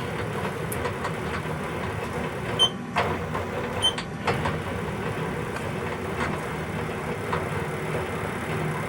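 Small bench lathe running steadily while an M3 tap is started into a freshly drilled hole, with a few light metallic ticks between about two and a half and four and a half seconds in.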